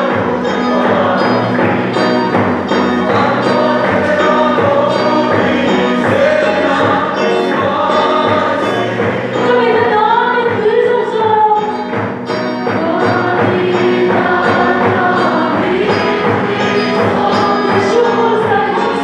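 Congregation singing a gospel song together to a steady drum beat, with keyboard accompaniment.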